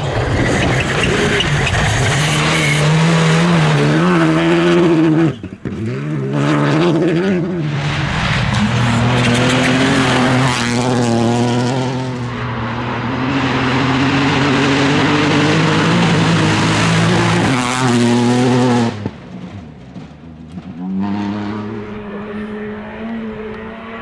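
Rally2 cars at full attack on gravel, beginning with a Škoda Fabia RS Rally2, their turbocharged 1.6-litre four-cylinder engines running at high revs, the pitch jumping at gear changes and then held high and steady on a long pull. The sound drops away abruptly about five seconds in and again near nineteen seconds, and a quieter engine note comes in over the last few seconds.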